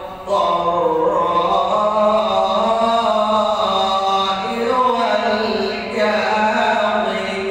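A male reciter chanting the Quran in slow, melodic tajweed style, holding long drawn-out notes that glide slowly in pitch. There is a short breath at the very start.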